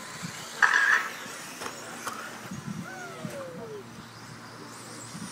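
Electric 4WD RC buggies racing on a sealed off-road track. A loud, short, high-pitched burst comes about two-thirds of a second in, and a falling whine follows around three seconds in.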